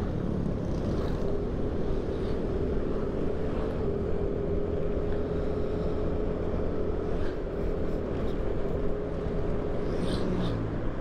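Yamaha NMAX scooter's engine running at a steady speed on the move, a steady hum under continuous road and wind noise.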